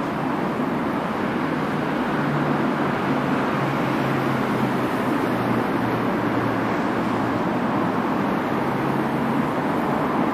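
Steady rumbling noise of a passenger train rolling slowly away along the station track, with a low hum through most of it.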